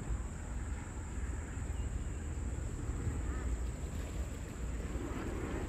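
Outdoor ambience over the flooded river: wind buffeting the microphone over a steady hiss, with a couple of faint short chirps.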